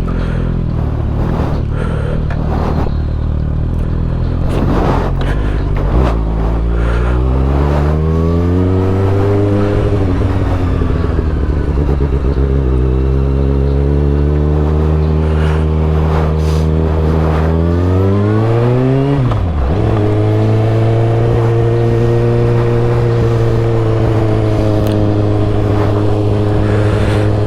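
Kawasaki Ninja ZX6R's 636 cc inline-four running through a Yoshimura Alpha T slip-on exhaust while riding. The engine note climbs in pitch twice under acceleration, drops sharply about two-thirds of the way through, then holds steady at a cruise. The tone is fairly tame.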